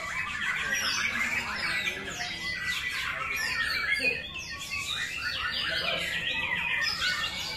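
White-rumped shama (murai batu) in full song: a dense, unbroken stream of quick downward whistles and chirps.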